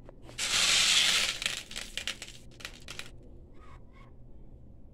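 Small metal pellets rattling as a handful is scooped and handled for loading into a toy pellet gun: a dense rattle lasting about a second, then scattered light clicks.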